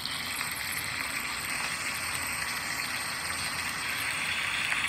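Tuna sausages sizzling in a hot frying pan: a steady hiss.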